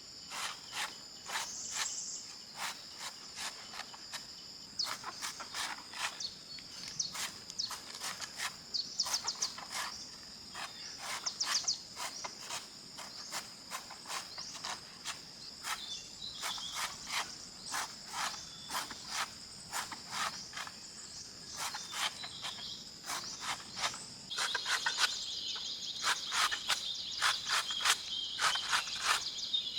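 Insects trilling steadily at a high pitch, with a second, louder insect chorus joining near the end. Many sharp clicks or taps, about one or two a second, run over it.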